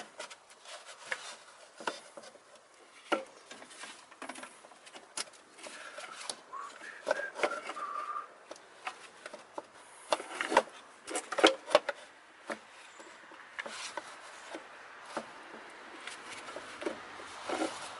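Irregular clicks, taps and scraping of hose-clamp pliers on a stiff spring clamp and gloved hands on rubber coolant hoses as the clamp is worked open, with a cluster of sharper clicks about ten to twelve seconds in.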